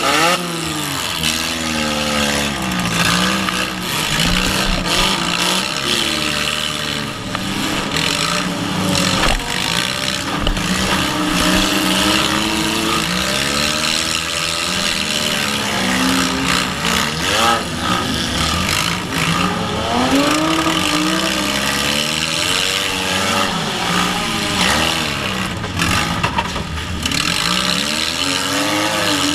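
Demolition derby car's engine revving up and dropping back again and again as it drives and reverses, heard from inside the stripped cabin, with a few knocks from impacts.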